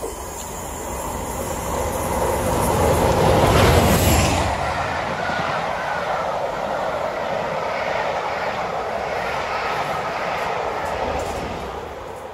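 Diesel-hauled passenger train passing at speed, with a Class 47 locomotive leading and a Class 37 on the rear. The leading locomotive's engine builds to its loudest about four seconds in, its pitch falling as it goes by. Then comes a steady rumble of the coaches' wheels on the rails, fading near the end.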